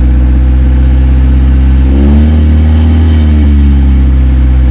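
1990 Acura Integra's four-cylinder engine idling through a really loud exhaust, heard from inside the car. About two seconds in it revs up slightly and settles back to idle about a second and a half later.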